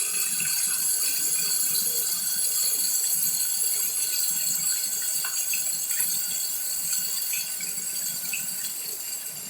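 Steady rain falling, an even hiss with a few sharper drops ticking around the middle, fading slightly near the end.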